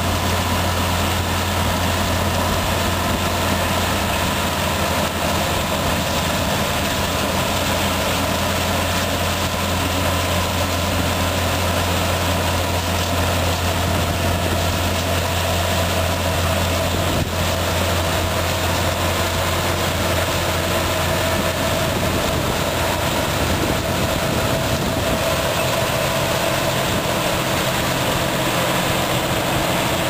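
Case CVX tractors and a Grimme potato harvester working together: tractor engines running steadily under load while the harvester's machinery runs.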